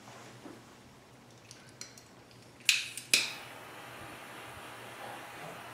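Light ticks, then two sharp clicks a little under half a second apart, from wire and small parts being handled on a workbench while heat-shrink tubing is slid over soldered wire joints. A faint steady hiss follows the clicks.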